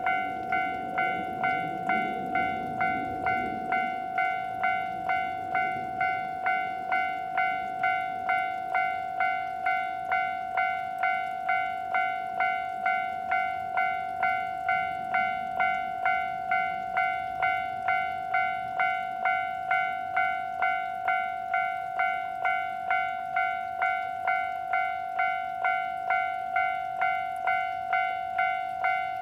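Japanese railway level-crossing alarm at a third-class crossing, ringing a steady, even 'kan-kan' at about two strikes a second. It is the warning that a train is approaching: the alarm starts once a train arrives at the neighbouring station.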